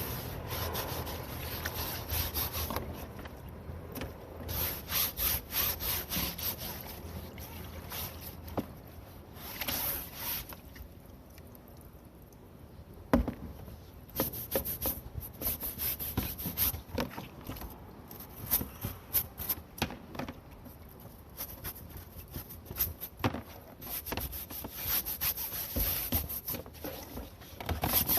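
Rasping scrubbing strokes on a perforated metal range-hood filter, working dirt out of its small holes. The strokes come in quick runs with short pauses, and there is a single sharp knock about halfway through.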